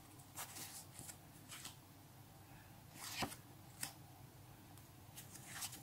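Faint rustles and light flicks of a stack of paper Panini stickers being handled and leafed through, a few short ones scattered through, the clearest about three seconds in.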